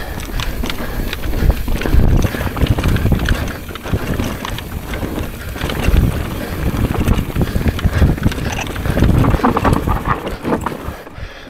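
Wind rushing over the microphone at speed, with the rattle and knocks of a downhill mountain bike on rough ground. The noise eases briefly near the end.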